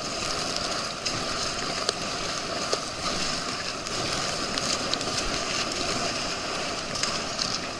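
Steady rush of water and wind as an inflatable tube is towed at speed over a motorboat's wake, with a few brief sharp ticks.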